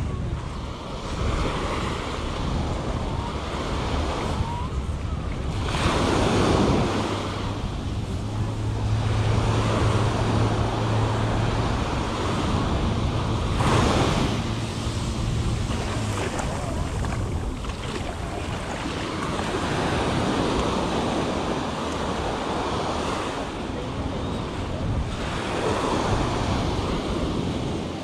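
Small surf breaking and washing up the sand, swelling every six to eight seconds, with wind buffeting the microphone. A low steady hum runs underneath for about ten seconds through the middle.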